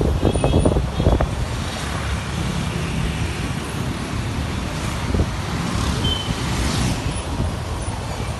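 Motorcycle riding through city traffic: wind rumbling on the microphone over the running of the bike's engine and the surrounding motorcycles and cars, with a few knocks in the first second or so.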